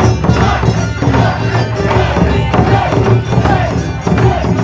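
Live Japanese taiko drum ensemble playing a dense, driving rhythm, with a pitched melody line over the drums.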